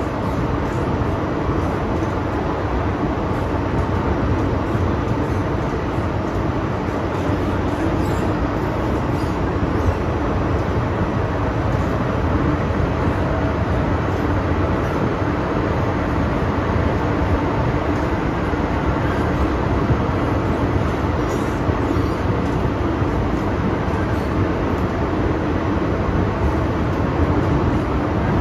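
MTR M-train metro car heard from inside while running at steady speed through a tunnel: a steady rumble of wheels on rail with tunnel noise and a faint steady hum.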